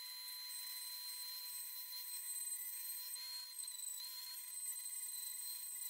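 Mini rotary tool (pen grinder) running at high speed with a grinding stone bit pressed against the edge of a wooden block: a steady high-pitched whine whose pitch dips slightly a few times as the stone bears on the wood.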